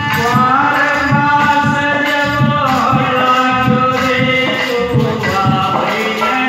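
Hindi devotional song (bhajan) with a singer holding long, drawn-out notes, amplified through a sound system, over a steady drum beat.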